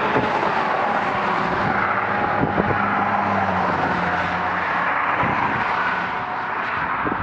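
Road traffic passing steadily, a continuous rush of tyre and engine noise, with a vehicle's low engine drone standing out from about one and a half to five seconds in.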